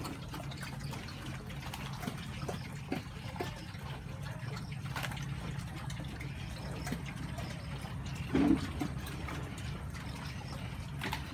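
Several pigs feeding at a trough, wet slurping and smacking of mouths in liquid feed in a steady irregular patter, with one short louder grunt about eight and a half seconds in.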